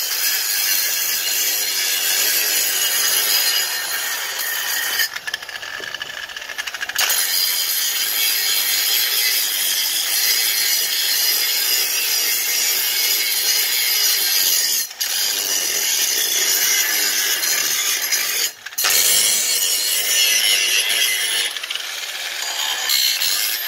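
Handheld angle grinder with an abrasive disc grinding the rusty steel of an old axe head: a loud, steady, high-pitched grinding rasp that eases off for a couple of seconds about five seconds in and breaks off twice very briefly later.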